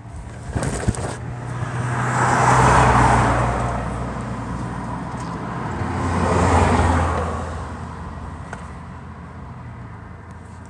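Car engine running with a steady low hum, the noise swelling and fading twice, about three and seven seconds in. A few clicks about a second in.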